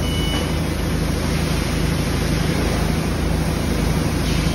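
Steady hum and noise of running machinery with a low drone, and a high electronic beep that stops about half a second in.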